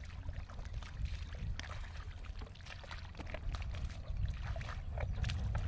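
Shallow muddy water being splashed and sloshed by hand, with irregular small splashes and drips over a steady low rumble.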